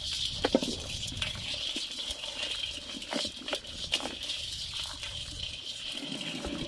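Live crabs, snails and small fish shifting about in a basin: scattered clicks and scratches of shells and legs against its sides, over a steady high hiss.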